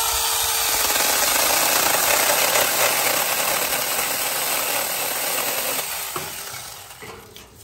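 Tomyvic 6-inch 21 V battery-powered mini chainsaw running and cutting through a tree branch: a loud, steady buzz that starts suddenly and fades out over the last couple of seconds.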